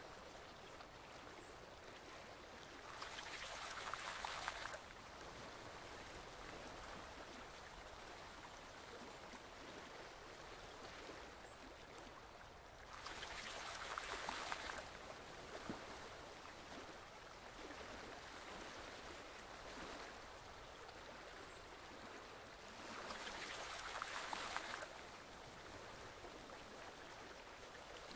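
Forest stream flowing steadily, with a louder rush of splashing water for about two seconds three times, roughly every ten seconds.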